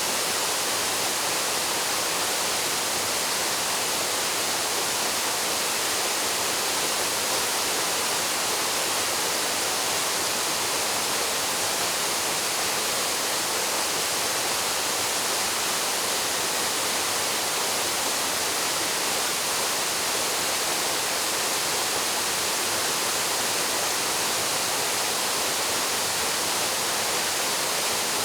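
Waterfall plunging into a pool: a steady, even rush of falling water with no breaks.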